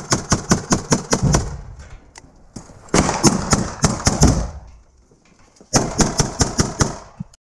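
Quick, even running footsteps over rubble, about six a second, in three runs with short pauses between, cutting off suddenly near the end.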